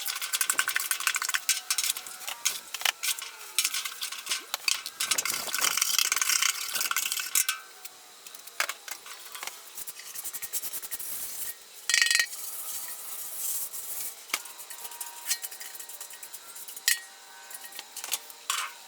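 Metal scraping, rubbing and clinking on the thin copper of a fire pit under restoration. The scraping is busy for the first several seconds, then thins to scattered scrapes and clicks, with one louder scrape about twelve seconds in.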